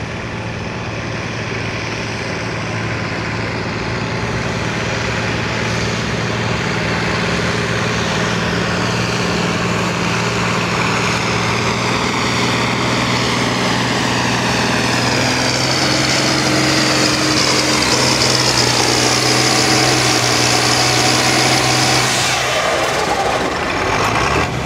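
Farm pulling tractor's diesel engine running at full throttle as it pulls the weight sled down the track, growing steadily louder as it comes nearer. Near the end the engine note falls away as the throttle comes off at the end of the pull.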